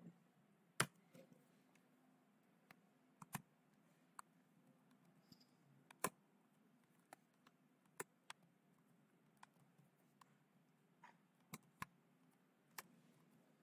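Computer keyboard typing: about fifteen separate faint key clicks at an uneven pace over near silence.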